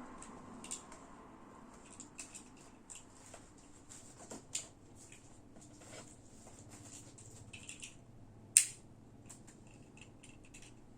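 Scattered small clicks and taps from hands working a Beyblade X top and its plastic packaging, with one much sharper click about three-quarters of the way through.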